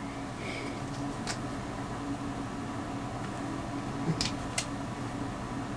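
Steady low hum in a small room, with three faint light clicks: one a little over a second in, two close together near the end.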